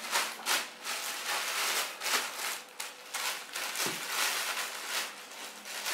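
Clear plastic bag crinkling in quick, irregular rustles as a wrapped part is pulled out of it and unwrapped.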